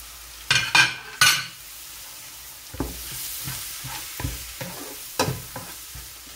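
Wooden spatula stirring browned onions and ground spices in hot oil in a nonstick frying pan, the oil sizzling steadily. There are a few loud scrapes about a second in, then softer strokes every half second or so.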